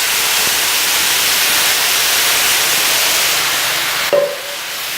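Chicken drumsticks and barbecue marinade sizzling on a hot grill press, a loud steady hiss. About four seconds in there is a brief short squeak, and the sizzle eases a little after it.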